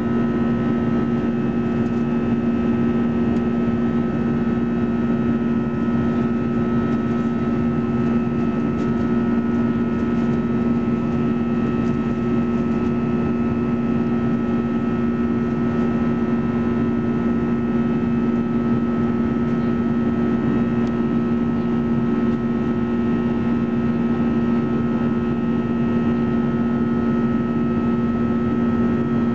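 Airbus A320-214's CFM56-5B turbofan engines heard from inside the cabin during the climb: a steady drone with a strong low hum and a few fainter higher tones over a constant rush of air.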